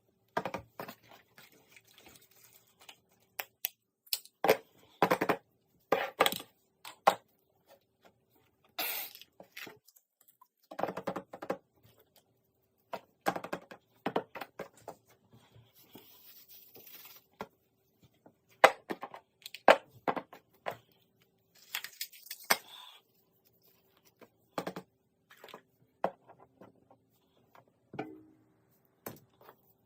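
Irregular handling noise of small objects: short clicks, taps and knocks a few seconds apart, with brief rustling in between.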